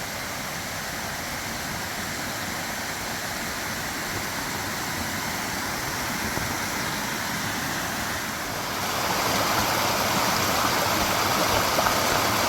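Waterfall and stream water rushing steadily, growing louder about nine seconds in.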